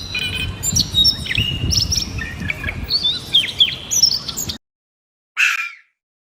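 Several small birds chirping and whistling over a low rumbling background, cut off abruptly about four and a half seconds in. A single short rushing noise follows about a second later.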